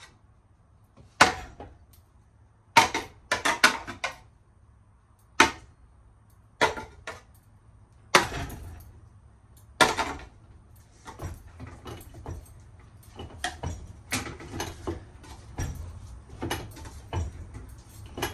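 Repeated hard blows on a ceiling fan as it is smashed apart: loud single hits and short clusters of hits in the first half, then a run of lighter, quicker knocks in the second half.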